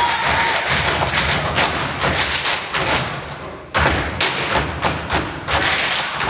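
Loud dance track played over a hall's speakers, dominated by heavy thumping beats about twice a second. It drops away briefly a little past three seconds in and comes back on a sudden hard hit.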